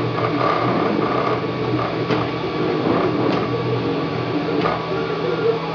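Wanhao Duplicator 3 dual-extruder desktop 3D printer printing. Its stepper motors whir in steady tones that keep shifting in pitch as the print head moves, with a few light clicks.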